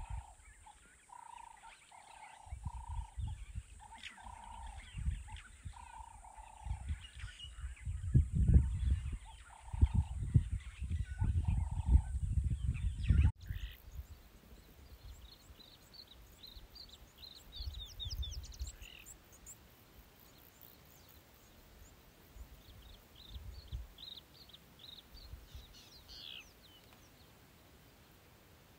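Bush ambience: a steady high hiss and a call repeated in short evenly spaced notes, with loud low thuds for several seconds in the first half. After a sudden change, quieter bush with small birds chirping.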